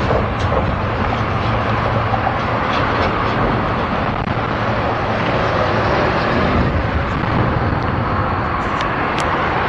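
Steady rumble and hiss of road traffic on the highway overpass overhead, with a few faint clicks near the end.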